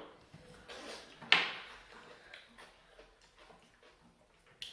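Scattered small clicks and knocks of a meal being eaten at a plate, with one sharper clatter a little over a second in.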